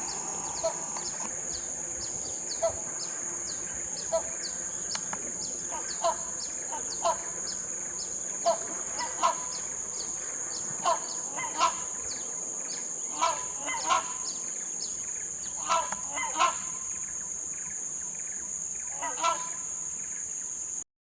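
Rhinoceros hornbill calling: short honking calls repeated about every second, often in pairs. They sound over a steady high-pitched insect drone. All sound cuts off suddenly near the end.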